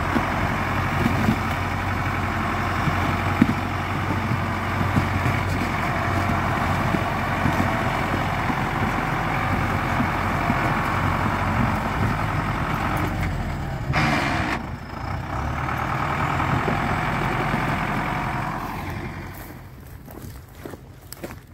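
Off-road truck engine running steadily under load while the bogged truck is winched out of a stream. There is a short dip and a sharp click about fourteen seconds in, and the sound falls away near the end.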